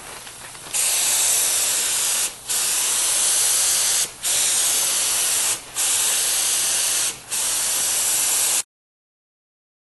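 HVLP gravity-feed paint gun spraying a coating, a steady hiss in five passes of about one and a half seconds each with short gaps between them as the trigger is let off. The sound cuts off suddenly near the end.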